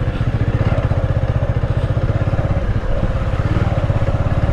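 Motorcycle engine running steadily at low speed, with an even, rapid beat of firing pulses.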